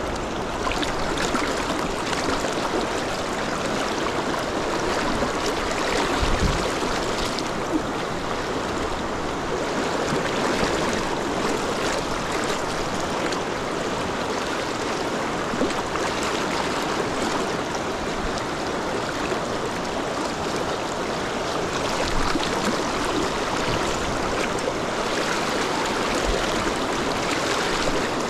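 Rapids of a large river rushing steadily, a constant wash of flowing water, with a brief low bump about six seconds in.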